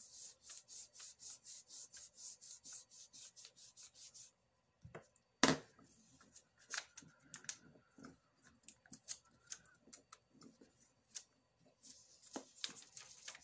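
A burnishing tool rubbed back and forth over paper laid on polymer clay, pressing the pieced clay sheet flat: a quick even run of strokes, about five a second, for the first four seconds, then slower scattered rubs and taps. A sharp knock about five and a half seconds in is the loudest sound.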